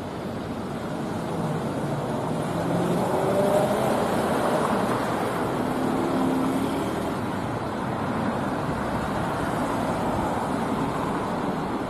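Street traffic noise: car engines and tyres, swelling over the first three seconds or so as a sedan pulls out, then holding steady.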